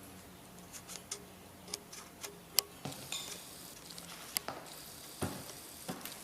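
Scattered sharp clicks and light knocks, about a dozen at uneven intervals, with one louder click near the middle.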